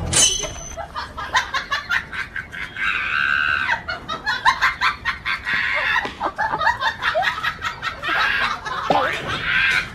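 Hen squawking and clucking in a scuffle, with rapid scratching and scuffling noises; harsh squawks come in several stretches.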